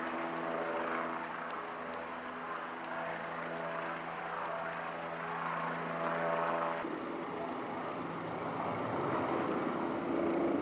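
Helicopter circling overhead: a steady drone with several held tones, which drops off abruptly about seven seconds in and leaves a rushing noise.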